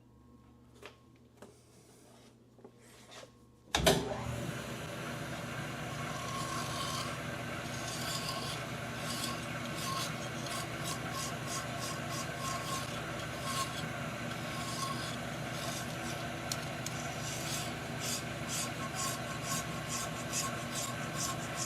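Metal lathe switched on about four seconds in, then running steadily with a gear whine and a rapid scraping, ticking sound of the tool cutting the metal pin. Before that, a few faint clicks of handling.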